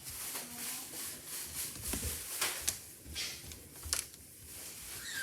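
A few light clicks and soft rustling, as of small objects being handled.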